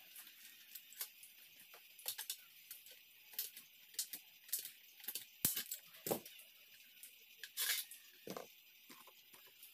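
Irregular light metallic clicks and taps of a hand tool and small fittings being worked at a joint of an aluminium square-tube frame, with a few sharper clacks about halfway through, over a faint steady hiss.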